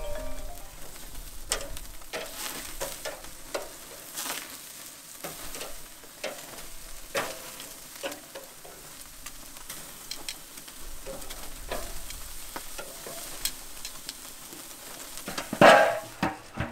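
Pork chops sizzling on a Weber kettle grill over flaring mesquite lump charcoal, with frequent sharp crackles and pops as fat drips into the fire. Near the end comes a loud metal knock as the kettle lid is lowered.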